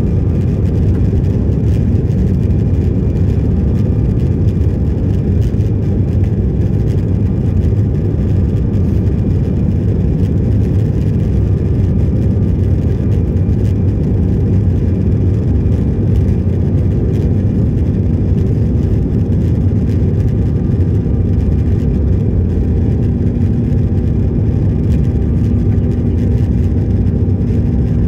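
Aircraft engines and airflow: a steady low rumble, with a faint steady hum joining about seventeen seconds in.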